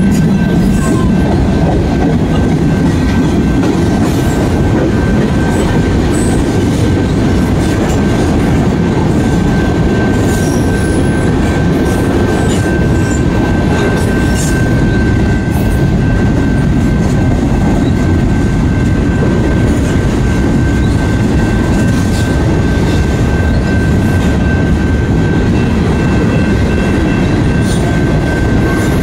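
Freight train's covered hopper cars rolling past close by: a loud, steady rumble of steel wheels on rail, with a thin, steady high squeal over it.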